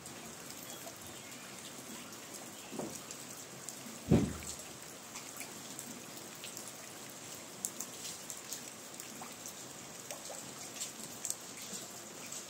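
Steady rain falling on a garden, with many sharp clicks of single drops landing close by. A dull thump about four seconds in is the loudest sound, with a smaller one near three seconds.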